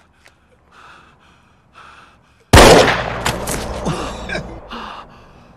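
A single loud gunshot about two and a half seconds in, echoing and dying away over about two seconds, after a stretch of faint small sounds.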